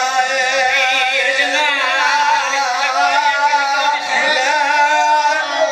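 A man's voice in sung, chant-like recitation, amplified through a microphone and loudspeaker, with long held, wavering notes.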